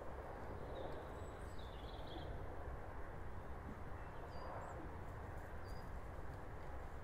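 A few faint, short high bird chirps over a steady low rushing noise.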